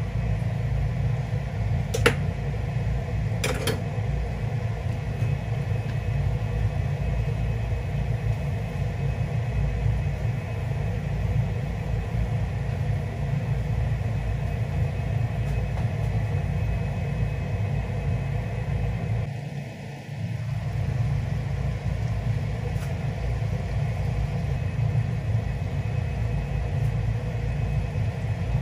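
Steady low rumble from a gas hob with a pan of sauce simmering on it. Two sharp clicks come about two and three and a half seconds in, and the rumble dips briefly near twenty seconds.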